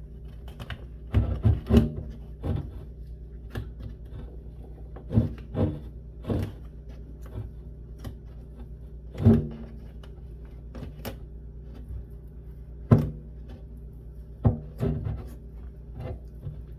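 Skateboard griptape being peeled off a wooden deck by hand in short, irregular tugs, mixed with knocks of the board being handled. A steady low hum runs underneath.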